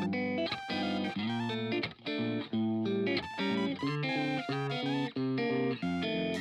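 Background music: a melody and chords with quickly changing notes and a steady beat.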